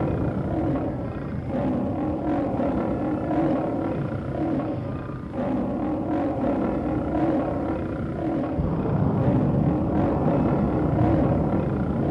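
Sci-fi monster sound effect: a continuous roar layered over a deep spaceship engine rumble, dipping briefly a few times.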